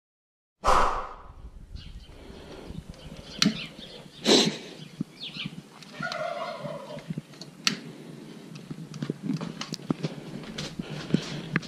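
Clicks and knocks of handling as charcoal in a ceramic kamado grill is lit with a long lighter. A short warbling call sounds about six seconds in.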